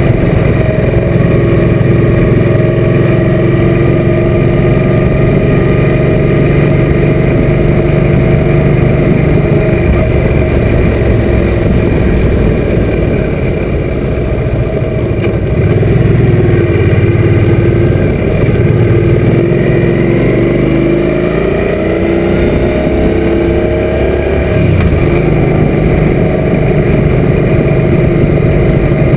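Suzuki M800's V-twin engine running steadily on the move. Its pitch climbs about twenty seconds in, then drops back abruptly and steadies.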